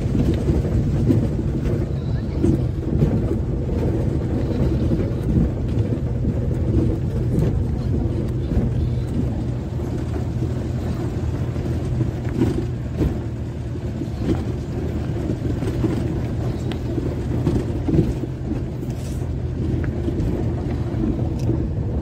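Vehicle engine running steadily with tyre and road rumble, heard from inside the cabin while driving over a rough dirt track, with occasional knocks from the bumps.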